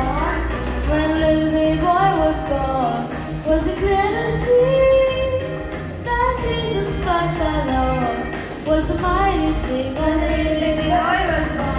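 A song: a high voice singing a melody over backing music with a steady bass.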